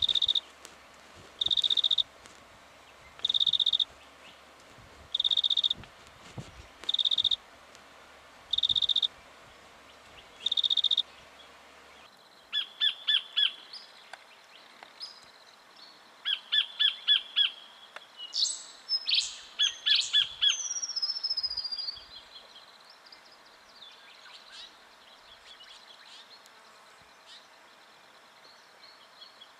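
Black-fronted dotterel calling: a series of seven high, even calls, one about every second and a half. About 12 seconds in, these give way to bursts of rapid ticking notes, a few sharp sweeping calls and a falling whistle, then faint chatter near the end.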